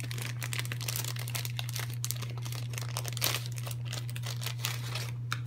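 Clear plastic bag crinkling and rustling as it is handled open and its contents are slid out, dying down about five seconds in. A steady low hum runs underneath.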